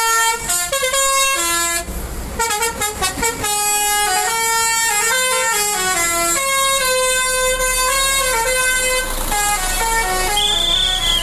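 Tour bus's musical air horn playing a tune, one steady note stepping to the next, with a low engine rumble underneath in the second half.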